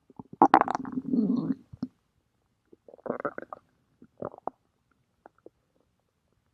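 Stomach growling: a long, loud gurgling rumble starting about half a second in, then two shorter gurgles around three and four seconds in, and a couple of faint clicks near the end.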